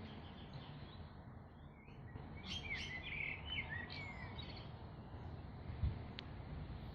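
A quick run of high chirping calls lasting about a second and a half, then a single thump near the end, over a steady low rumble.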